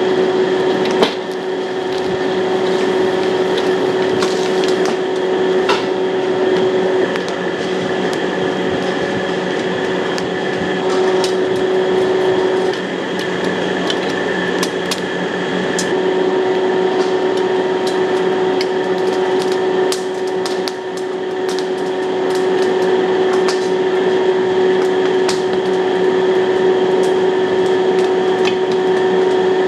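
Commercial wok stove running with a steady hum, with frequent sharp clicks and clanks of a metal spatula striking the wok.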